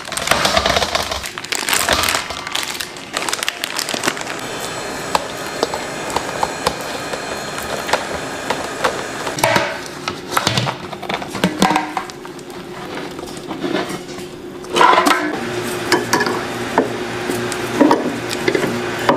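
A thick, soft mixture being worked in a stainless steel mixing bowl: a spatula scrapes and slaps it against the bowl, then a stand mixer's flat beater churns it into lumps with crackling, knocking sounds. A steady motor hum comes in about fifteen seconds in.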